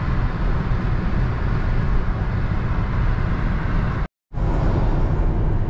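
Steady road and engine noise of a vehicle driving on a motorway, heard from inside the cabin. It cuts out to silence for a fraction of a second about four seconds in, then carries on.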